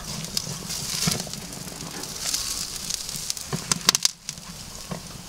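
Steaks searing on the grate over a very hot charcoal fire: a steady sizzle with charcoal crackling, and a few sharp clicks in the second half as steel tongs lift and turn a steak on the grate.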